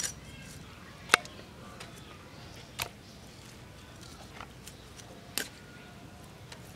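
Raw chicken pieces dropped into a metal bowl: four sharp knocks about a second or two apart, with a few fainter ticks between them.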